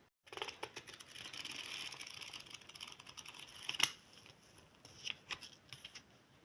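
Faint rustling with scattered light clicks and taps, as of a paperback book being handled and its pages turned. The loudest click comes a little before the four-second mark.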